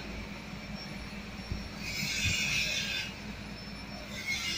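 TIG (argon arc) welding at a pipe joint: the arc hissing with a thin high whine that swells twice, about two seconds in and again near the end, over a steady low hum.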